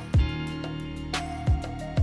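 Background music: sustained melodic notes over a beat, with a deep drum hit just after the start and another about a second and a half in.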